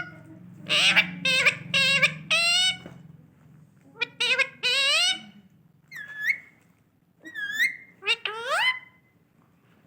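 Indian ringneck parrot calling: a run of short, high calls whose pitch slides up and down, coming in clusters with short pauses between them.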